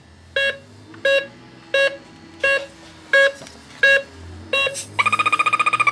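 Snap-on ACT 5500 halogen refrigerant leak detector beeping at a slow, even rate of about one beep every 0.7 seconds. About five seconds in it switches to a fast, continuous pulsing alarm as gas from a can of air duster (R152a) reaches its probe, showing that the repaired detector is sensing halogen refrigerant.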